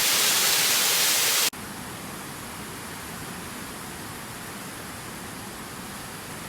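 Rushing water of a waterfall as a steady noise. About a second and a half in it cuts off abruptly to a quieter, steady rush.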